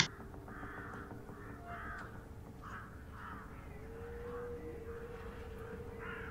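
Crows cawing in a long series of short, harsh caws, roughly two a second, over a steady low hum.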